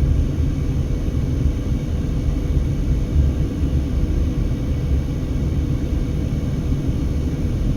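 Steady low rumble inside a moving car's cabin: road noise and strong wind buffeting the car, with a faint steady hum underneath.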